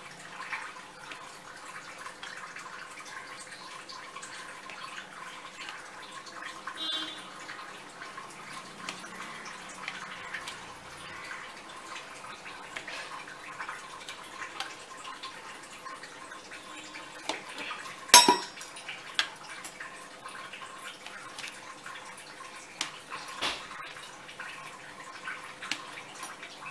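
A hand-held cutter scraping and ticking as it scores soft burfi in a steel tray, over a faint steady hiss. One sharp metallic clink against the tray rings out about two-thirds of the way through.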